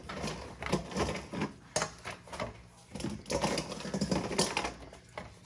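Mussel shells dropped by hand into a stainless steel stockpot, clacking against the shells already inside and the pot's sides with irregular hard knocks, several a second at times.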